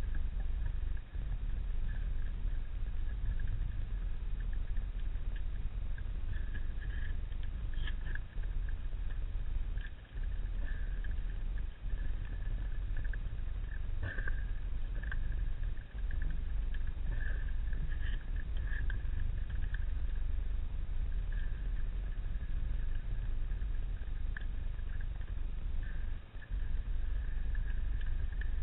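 Underwater ambient sound in shallow water among kelp: a steady low rumble of water movement, with a thin higher hiss that flares up in short patches every second or two and a few faint clicks.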